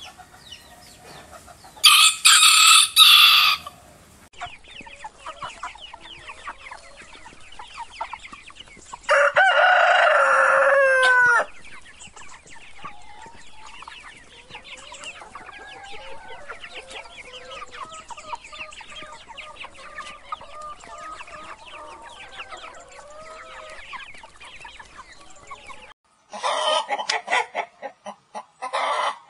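Chickens: a rooster crows twice, loudly, the second crow trailing off in a falling glide. Then comes a long stretch of softer chicken calls, and near the end a hen clucks in short, choppy bursts.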